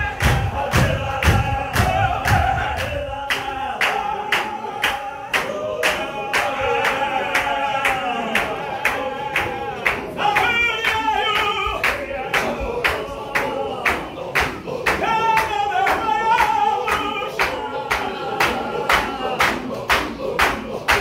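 Men's congregation chanting a Qadiri Sufi zikr in unison, kept in time by steady hand clapping at about two and a half claps a second. A higher lead voice rises over the chant a little after the middle and again later. Heavy low thuds of feet, fading out about three seconds in.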